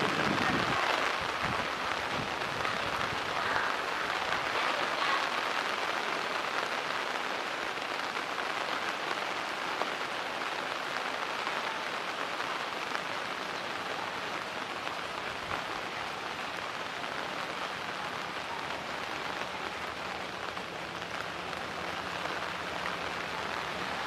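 Heavy rain falling steadily on standing floodwater, a dense even hiss of drops striking the water's surface, growing slightly softer over the span.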